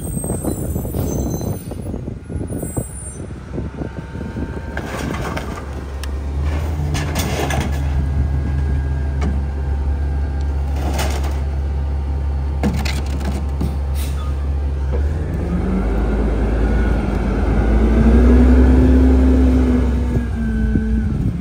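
Heil rear-loader garbage truck with a compressed-natural-gas engine idling while recycling is tipped into the rear hopper, with clattering bangs twice in the middle. About fifteen seconds in, the engine revs up and holds a higher pitch as the hydraulic packer runs, then drops back near the end.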